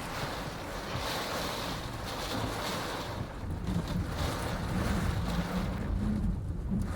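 Strong wind rushing over the microphone; about halfway through it turns into heavier, low buffeting.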